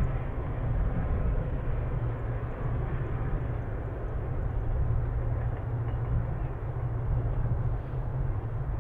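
Diesel-hauled Mugunghwa passenger train running: a steady low rumble.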